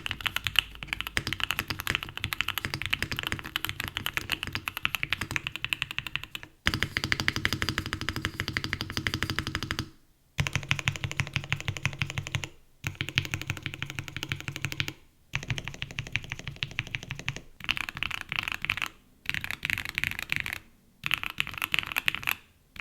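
Fast typing on a Mode Sonnet custom mechanical keyboard with Gateron Oil King linear switches, a POM plate and PBT doubleshot keycaps: a dense run of clacking keystrokes. It comes in several stretches separated by brief silent breaks. The build is stiff and fairly muted.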